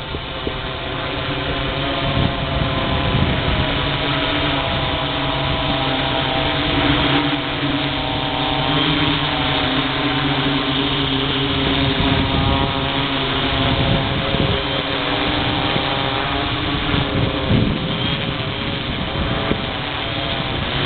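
Six-rotor multicopter flying overhead: its electric motors and propellers give a steady buzzing hum made of several tones that drift up and down as the motor speeds adjust. It grows louder about two seconds in.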